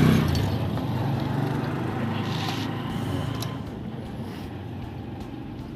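A motor vehicle's engine running, loudest at the start and fading away over several seconds. There are a few light clicks as metal latch parts are handled.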